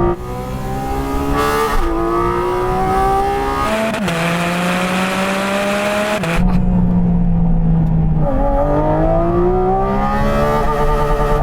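Porsche 4.0-litre naturally aspirated flat-six accelerating hard through the gears at high revs. Its pitch climbs steeply and drops at each quick upshift, about two seconds apart, then holds a steadier, lower note for a couple of seconds before climbing again near the end.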